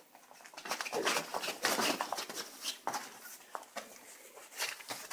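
Rustling and scuffling of a fabric play tunnel as Shiba Inu puppies scramble in and around it. The rustling is loudest from about one to two seconds in, then comes in shorter scattered bursts.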